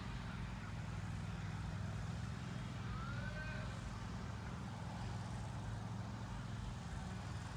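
Riding lawn mower engine running at a steady speed, a low even drone.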